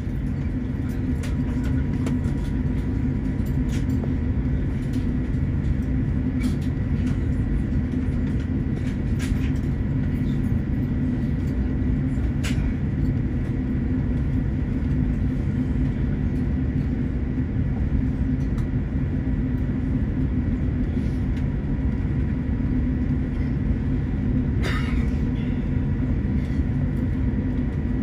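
Steady low rumble and hum inside an airliner cabin, with faint steady whines above it, from the aircraft's engines and air systems as it reaches the gate. A few brief clicks and rattles sound over it, the clearest near the end.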